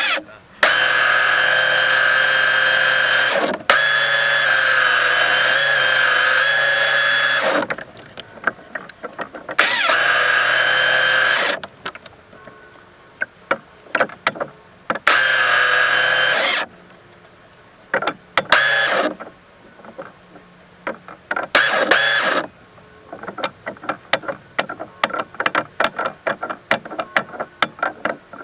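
Small electric motor of a radio-controlled mini boat whining in bursts as the throttle is opened and closed, picked up by a camera on the hull: one long run at the start, then several shorter bursts. Between bursts come rapid, irregular ticks and knocks.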